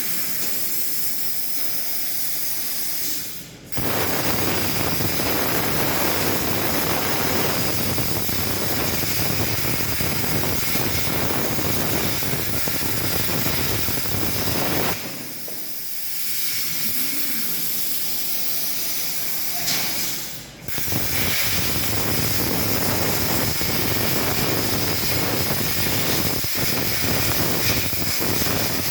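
Plasma cutting torch on a SteelTailor Dragon III CNC table: a quieter hiss, then the cut starts about four seconds in with a loud, steady rushing hiss. It drops back to the quieter hiss around the middle, and a second cut starts about two-thirds of the way through.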